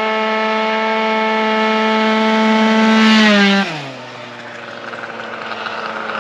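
A Piaggio NRG scooter's tuned two-stroke engine with a Stage6 70 cc kit, held at high revs and creeping slightly higher for about three and a half seconds. The revs then drop quickly to about half as the throttle is let off, and it runs on steadily at lower revs.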